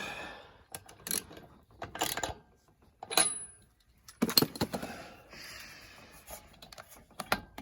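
Metal tools clinking and knocking in a handful of separate sharp strikes, one ringing briefly about three seconds in, with some rustling handling noise in between, during work at the mower's spark plug.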